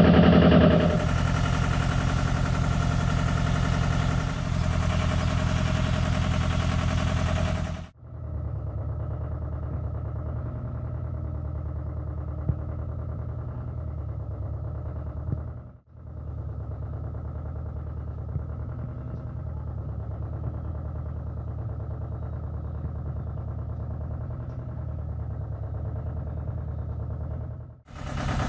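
Small tractor's engine running steadily. It is louder and fuller for the first eight seconds or so, then carries on quieter and duller, with a couple of faint clicks.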